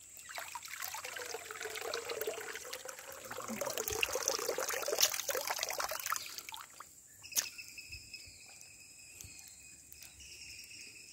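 Hands moving in shallow river water, splashing and trickling for about seven seconds, then going quieter. A single sharp click comes just as it quiets, followed by a steady high tone.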